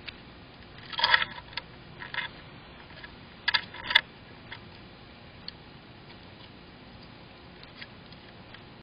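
Raccoon's claws scraping and clicking on a metal-clad nest box as it climbs over it: a cluster of scrapes about a second in, another around three and a half to four seconds, then a few scattered single ticks.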